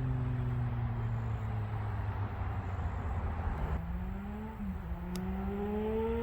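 Triumph Street Triple 765 RS three-cylinder engine and exhaust on the move. The engine note falls steadily as the bike slows, then climbs again under throttle, with a brief dip about four and a half seconds in like a gear change.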